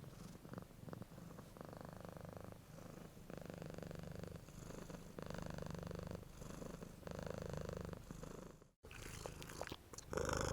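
Cat purring in long, even pulses of about a second each, with a brief break shortly before the end.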